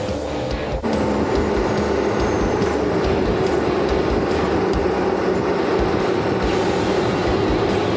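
Steady rumbling vehicle noise, stepping up a little under a second in, over background music with a regular low beat.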